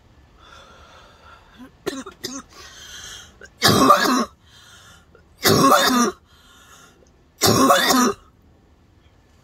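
A woman coughing hard after a hit from a bong: three harsh coughs, each about half a second long and about two seconds apart, after a few seconds of faint breathy exhaling.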